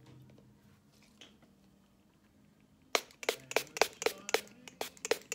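Pump bottle of makeup setting spray being sprayed rapidly, about ten short hissing spritzes at roughly four a second, starting about three seconds in.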